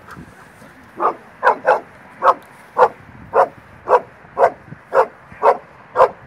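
Yellow Labrador-type dog barking in a steady string, about two barks a second, starting about a second in. It is the hold-and-bark of a protection-trial dog sitting at a blind and barking at the helper hidden behind it.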